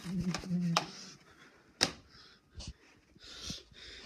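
A short voiced hum at the start, then one sharp plastic click about two seconds in and soft rustling as a DVD case is handled.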